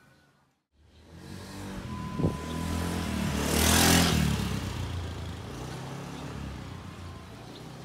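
A motor vehicle passing by: its engine and tyres grow louder to a peak about four seconds in, then fade away, with a short knock a little after two seconds.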